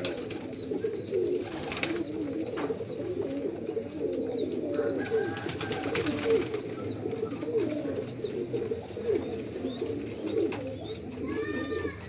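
A flock of domestic pigeons cooing continuously, many birds calling over one another. Short high chirps come in now and then.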